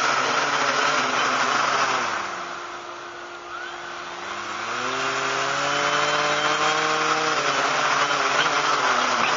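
Quadcopter motors and propellers whirring during a ground run-up test of the controls. The pitch and level drop about two seconds in, glide back up around five seconds and hold, then ease down again about seven and a half seconds in as the throttle is worked.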